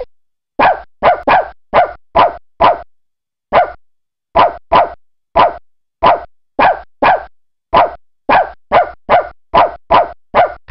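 Dog-bark sound effect of the After Dark 'Bad Dog' screensaver: the same short digitized bark plays about twenty times in quick, uneven succession, with silence between barks.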